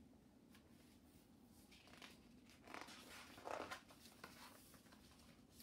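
Faint rustle of a picture book's paper page being turned by hand, a few soft swishes in the middle, the last and loudest a little past halfway.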